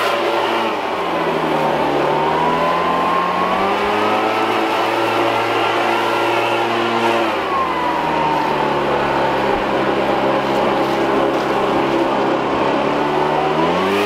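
Stihl BR700 backpack leaf blower's two-stroke engine running hard with a rush of air. The throttle is eased off and opened up again, so the engine note falls about a second in, rises around three seconds, falls again around seven seconds and rises near the end.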